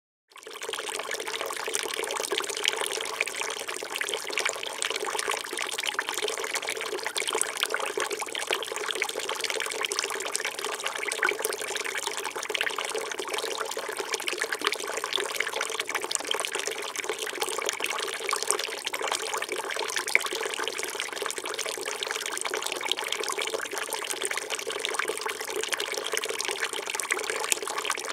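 Small resin garden fountain with its recirculating pump running: a thin stream of water pouring from a spout into a water-filled barrel basin, a steady splashing trickle that fades in within the first half-second.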